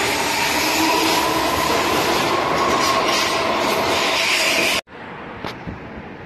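An S-Bahn electric train running past a station platform: a loud rush of wheel and air noise with a motor whine that rises slightly and then holds steady. It cuts off abruptly about five seconds in, leaving faint wind noise.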